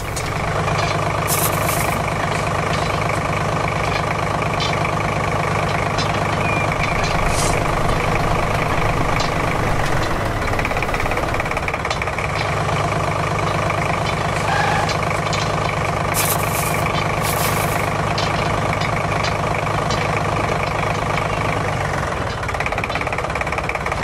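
A machine running steadily with an engine-like drone. Its tone shifts slightly about halfway through, and a few sharp clicks sound over it.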